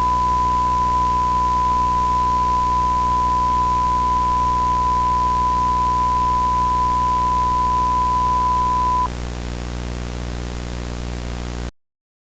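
A steady electronic tone near 1 kHz, held for about nine seconds over a hiss and a low hum. Then the hiss and hum go on alone and cut off abruptly shortly before the end.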